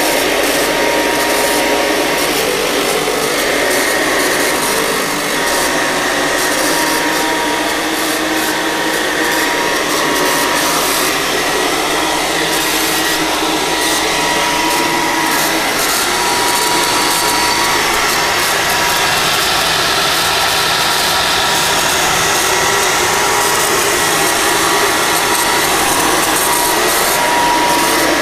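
1935 Hoover Model 475 upright vacuum cleaner's 250-watt motor running steadily: a loud, even rush of air with a faint high whine held at one pitch.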